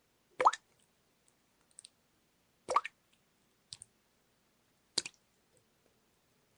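Water drops dripping into water: three distinct plops about two and a quarter seconds apart, each with a quick upward pitch bend, and a faint smaller drip ticking between them.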